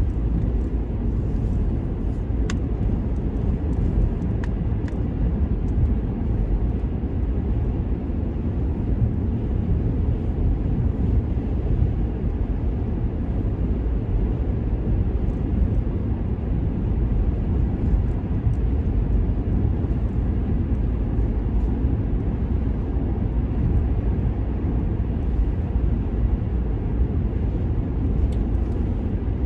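A car driving at highway speed, heard from inside the cabin: a steady, low road rumble with no change.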